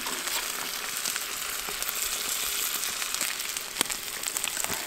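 Duck breasts frying in rendered bear fat in a frying pan over a campfire: a steady sizzling hiss with scattered small pops and crackles, and one sharper click near the end.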